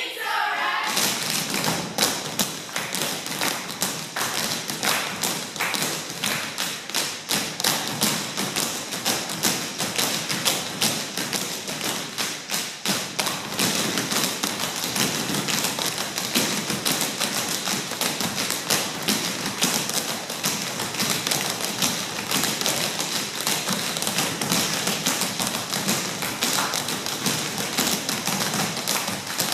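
Tap shoes of a group of dancers striking the stage floor in rapid, continuous rhythms, with no music.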